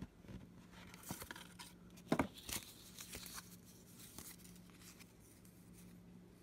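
Paper cards and a cardboard box being handled: faint rustling and sliding as instruction leaflets are pulled out, with the loudest scrape about two seconds in. A faint steady low hum runs underneath.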